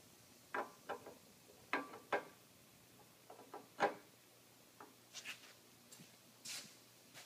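Irregular sharp metal clicks and knocks as an R&R puller collet is forced through a worn bearing's outer race in a Toro basket roller, until its lips catch behind the race. The loudest knock comes about four seconds in.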